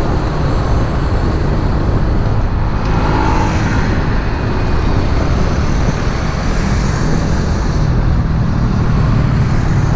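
Motorcycle engine running steadily while riding, with heavy road and wind noise and surrounding traffic.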